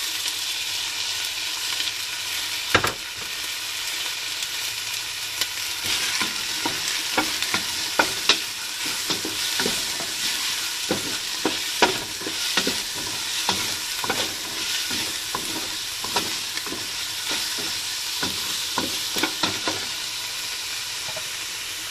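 Ground pork frying with garlic, onion and tomato in a hot metal pan: a steady sizzle, with the stirring utensil scraping and clicking against the pan, a few knocks louder than the rest.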